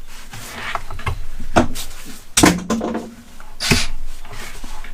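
Hand-tool handling noise: a hex driver and the RC car's chassis parts rubbing and scraping, with a few sharp knocks, one of them ringing briefly, while a stuck, Loctited bolt is being worked loose.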